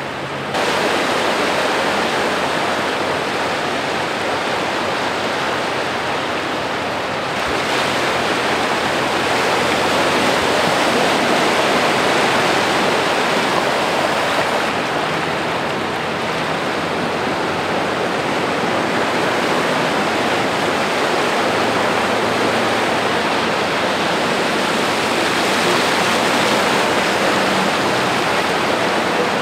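Flash floodwater rushing across a paved street: a loud, steady rushing of moving water.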